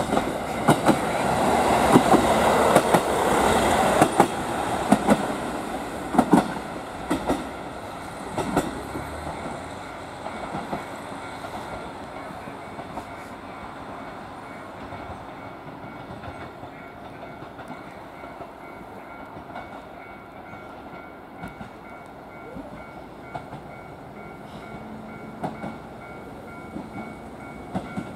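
JR Hokkaido KiHa 40 diesel railcar passing through the station, its engine running and its wheels clicking sharply over rail joints. The sound is loudest in the first few seconds and dies away over about ten seconds. A few faint clicks return near the end as an H100 railcar approaches.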